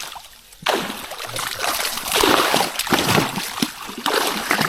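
Water splashing and sloshing in bursts as a heavy, fish-laden trap is hauled up out of floodwater, water pouring off it.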